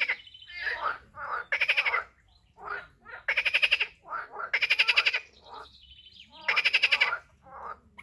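Frogs calling from a pond. Four loud croaks, each a quick series of pulses about half a second long, come roughly every second or two, with fainter, shorter calls from other frogs in between.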